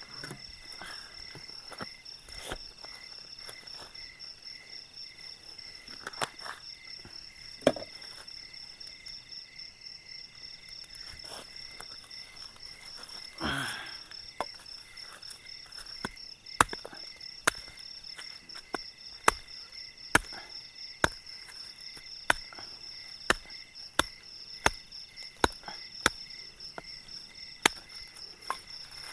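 Crickets chirring steadily in a high pulsing trill. Over them come scattered sharp knocks, and from a little past halfway a regular run of them at about one and a half a second, the loudest sounds present.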